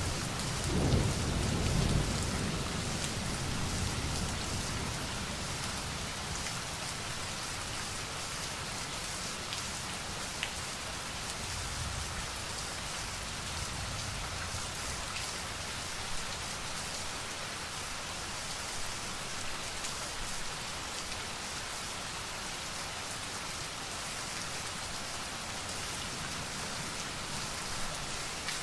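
Steady rain falling, with a low rumble of thunder dying away over the first few seconds.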